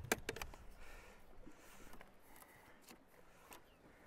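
Light clatter of a fish measuring board being picked up and handled on a boat: a few sharp knocks and clicks in the first half second, then faint scattered ticks and rustling.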